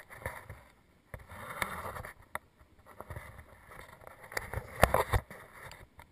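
Handling noise as a baited lobster hoop net is lowered on its rope: irregular knocks and rubbing, with a cluster of loud knocks about five seconds in.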